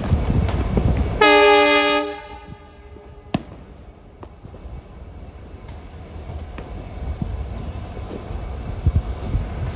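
Horn of the hauling EMD WDP4 diesel locomotive: one loud, short honk of a single steady pitch, about a second in, cut off sharply. Around it is the rumbling running noise of the train, which drops after the honk and builds again toward the end, with a sharp click and a few knocks.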